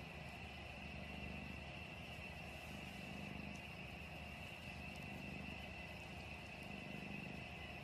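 Domestic cat purring steadily, a low rumble that swells and eases with its breathing.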